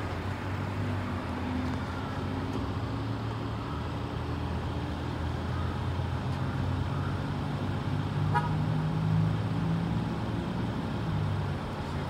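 Motor vehicle engine idling with a steady low hum under general street and traffic noise, with a short click about eight seconds in.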